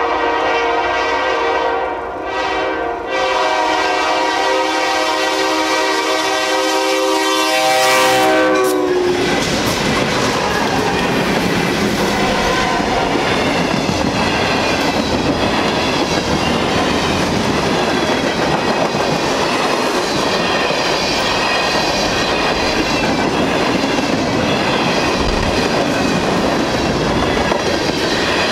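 Freight train horn sounding a long chord, broken twice briefly, its pitch sliding down as the locomotives pass about eight seconds in. Then the steady rumble and clickety-clack of a fast freight train's cars rolling past.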